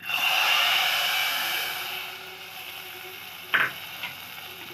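Hot tempering of oil and whole spices poured into a pot of sambar, sizzling loudly at once and dying down over about two seconds. A single clink near the end.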